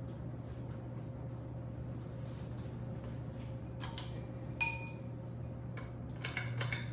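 Murray Feiss ceiling fan with a 172 mm motor running, a steady low hum. A few light clinks come in the second half, some with a brief ringing tone.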